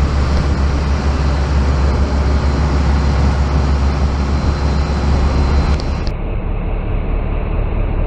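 Fishing boat under way: a loud, steady engine rumble mixed with wind on the microphone, the low rumble dropping away abruptly about six seconds in.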